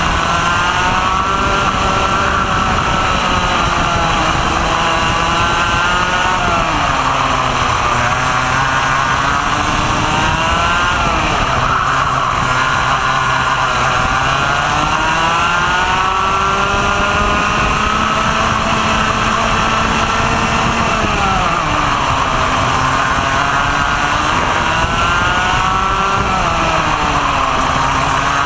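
Onboard sound of a Vortex ROK 125cc two-stroke kart engine at racing speed: the revs climb steadily along the straights and fall sharply about four times as the kart slows for corners, over a steady rushing noise.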